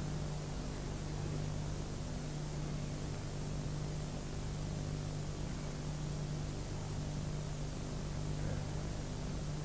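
Steady hiss with a low, even electrical hum: the recording's background noise with no one speaking.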